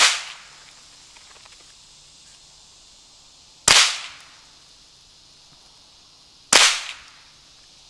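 Three shots from a Marlin Model 60 .22 LR semi-automatic rifle, about three seconds apart: one right at the start, one a little before four seconds in, and one about six and a half seconds in. Each is a sudden crack that dies away in about half a second.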